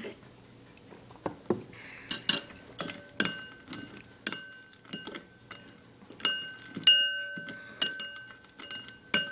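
Spoon clinking repeatedly against a bowl while scooping cereal: a dozen or so irregular strikes, several leaving a short ringing tone.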